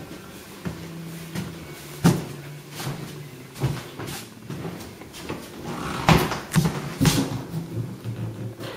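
An interior door being opened and handled: a series of sharp knocks and clicks a second or so apart, the loudest two near the end.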